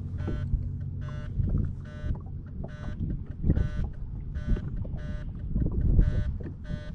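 Electronic beeper beeping steadily, a short buzzy beep about every 0.8 seconds, over low rumbling wind and boat noise.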